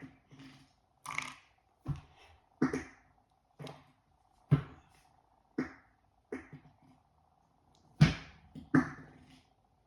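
A person making a quick series of short fart sounds, about ten separate bursts, the loudest two near the end, with a faint steady hum underneath.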